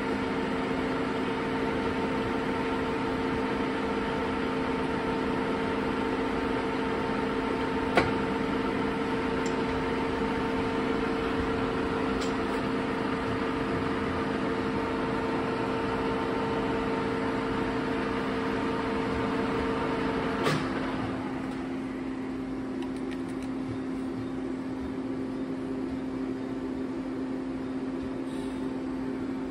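Metal lathe running with a steady hum and two held tones while a steel worm-shaft workpiece is bored out, with a sharp click about eight seconds in. About two-thirds of the way through, one of the tones stops with a click and the running sound gets slightly quieter.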